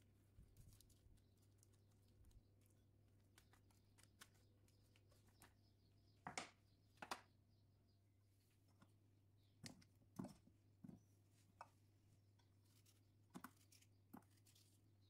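Near silence: room tone with a steady low hum and a scatter of faint, sharp taps and clicks from handling food in the kitchen. The loudest two come about six and seven seconds in.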